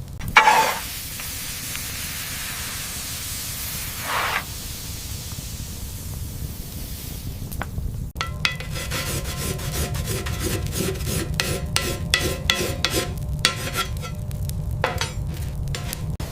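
Hissing with two short louder bursts, then from about halfway a rapid run of sharp metallic taps and scraping with a ringing tone: metal tools working on steel.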